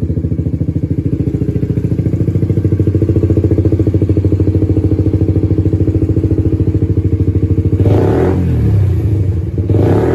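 Suzuki GSX-S125's single-cylinder four-stroke engine idling through a Dominator GP1 aftermarket exhaust with the dB-killer removed, a loud, steady, even pulse. The throttle is blipped twice near the end, the pitch quickly rising and falling each time.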